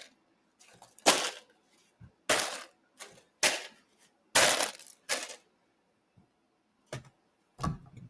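Fast-food paper packaging being crinkled and crushed in a string of short, sharp bursts, roughly one a second, the longest about halfway through.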